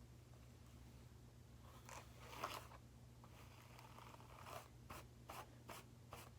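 Faint rustling and scraping, then a few quick soft clicks, over a steady low hum.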